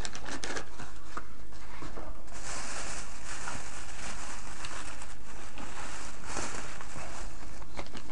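Plastic packaging crinkling and rustling as it is handled: scattered light clicks at first, then a dense, continuous crinkle for several seconds, and a few more clicks near the end.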